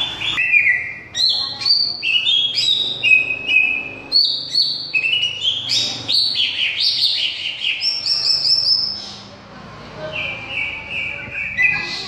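Cucak ijo (green leafbird) singing a fast, varied song of short whistled and chattering phrases, then a softer run of repeated notes near the end.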